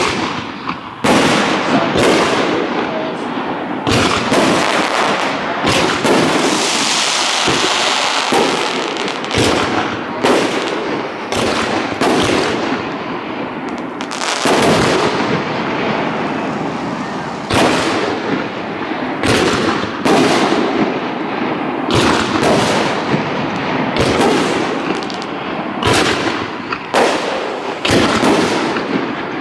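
Aerial fireworks shells bursting one after another, sharp bangs coming about once a second, over a continuous hissing, crackling noise between them, which grows brighter for a few seconds about six seconds in.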